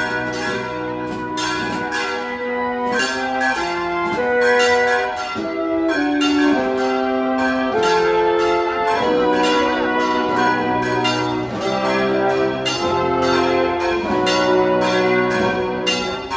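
Brass band playing a processional march outdoors: trumpets, horns and tuba holding full chords that change every half second to a second, over regular drum hits.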